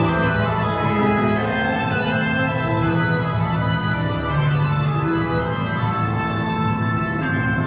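Organ music playing slow, sustained chords, the held notes changing about once a second.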